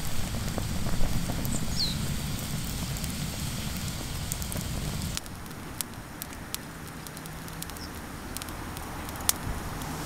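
Wood campfire crackling, with a low rumble in the first half that falls away about five seconds in, leaving scattered sharp pops and snaps.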